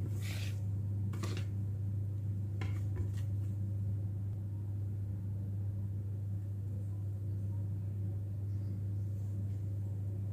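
Steady low hum throughout, with a few light clicks and knocks of a wire whisk and plastic mixing bowl in the first three seconds as the whisking stops and the bowl is lifted.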